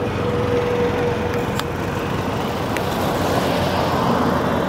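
Steady low road noise, like a vehicle moving on a rough road, with a faint steady whine during the first two seconds and a couple of light clicks.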